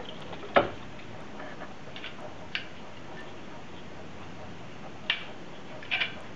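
Scattered sharp plastic clicks and knocks from handling a CPU cooler and its clips while fitting it onto the motherboard, the loudest about half a second in, then single clicks about two, two and a half and five seconds in and a short double click near the end.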